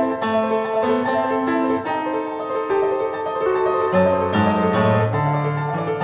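Solo piano playing full chords over a bass line that steps from note to note, with no pauses.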